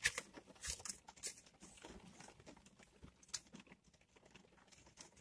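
Faint rustling and crinkling as a rain-soaked cardboard box is opened by hand, mostly in the first second and a half, then only a few soft clicks.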